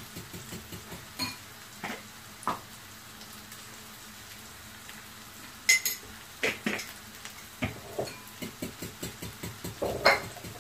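Onions and green chillies frying in a pan with a faint sizzle, under scattered clinks and taps of utensils and spice jars. From about eight seconds in, a quick run of light ticks: a fork beating egg in a glass bowl.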